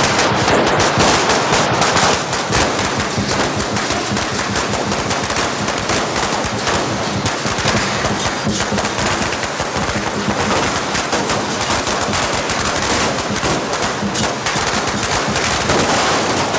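A long hanging string of firecrackers going off, a dense, rapid crackle of bangs that keeps on without a break.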